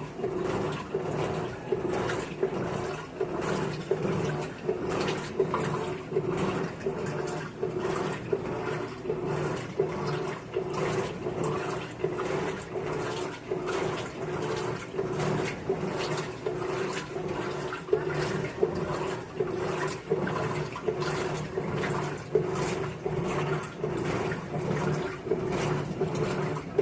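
Electrolux LT15F washing machine in its rinse cycle with a blanket inside: a steady motor hum with water sloshing in even, regularly repeating surges.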